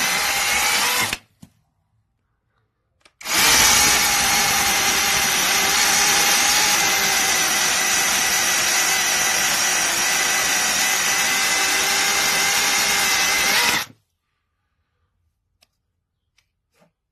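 SEESII brushless battery mini chainsaw running with a steady whine. It stops about a second in, starts again two seconds later, runs for about ten seconds, then cuts off suddenly.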